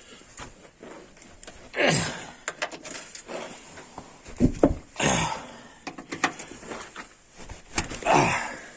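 Handling noise from checking subframe bolts with a wrench: three short scraping, rustling sounds a few seconds apart and a few faint knocks.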